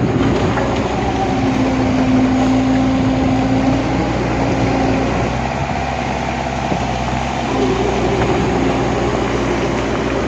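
A large engine running steadily under load, with a held hum that shifts pitch a few times, typical of heavy earth-moving machinery at work.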